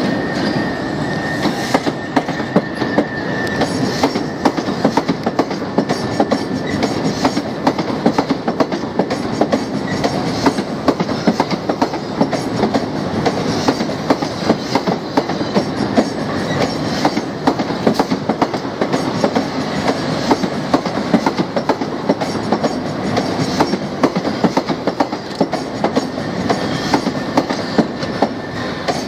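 Class 375 electric multiple unit rolling slowly through pointwork, its wheels clattering steadily over the rail joints and crossings. A faint high tone sounds in the first few seconds.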